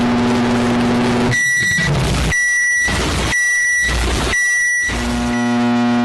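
Microwave oven running with a steady hum, which cuts out about a second in. Four high beeps follow, about one a second, and then the hum starts again near the end.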